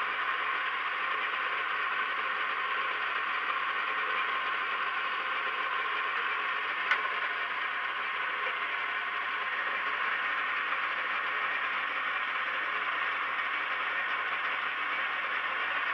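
Kenwood stand mixer's motor running steadily as it mixes and kneads bread dough in its steel bowl, with a single sharp click about seven seconds in.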